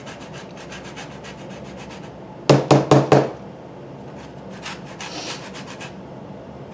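A lemon being grated on a flat handheld zester over a plastic container: quick repeated rasping strokes, several a second. A short run of three or four louder, harsher strokes comes about two and a half seconds in.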